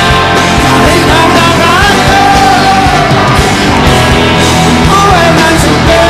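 A rock band playing live on electric guitars and drums, with a melodic lead line that bends up and down in pitch over the steady backing.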